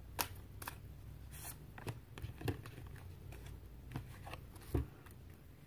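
Tarot cards being handled: a scattered series of short, faint rustles, slides and clicks of card stock, the last one near the end the loudest.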